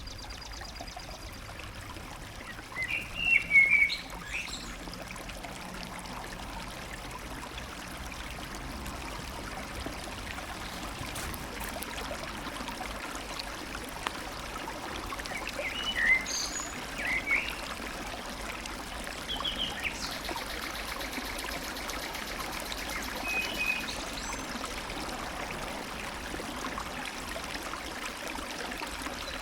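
Stream running steadily, with birds calling now and then above it; the loudest calls come a few seconds in, with shorter groups of calls later on.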